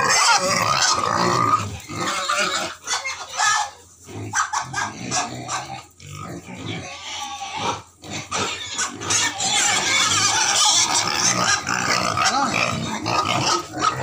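A group of young white pigs in a pen making noise and moving about. The sound drops off briefly a few times in the first half and is fuller and more continuous in the second half.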